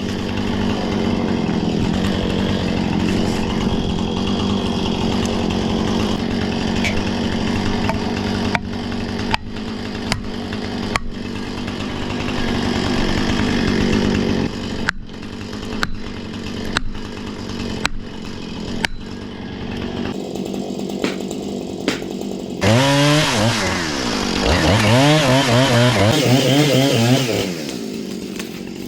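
Chainsaw running steadily through a cut, with a string of sharp knocks in the middle stretch, then revved up and down several times near the end.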